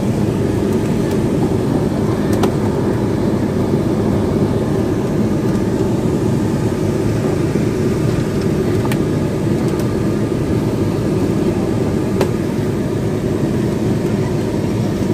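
Steady low rumble, like a vehicle running, with a few faint clicks as the dashcam cord is tucked along the dashboard trim.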